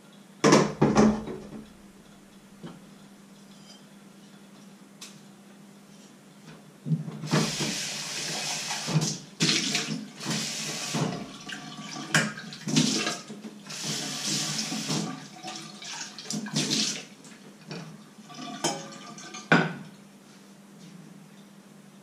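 Kitchen tap running into a small stainless-steel saucepan held in a steel sink, filling it with water in several spurts, with clinks of metal on metal. A short clatter of cookware comes about half a second in, and two sharp knocks near the end.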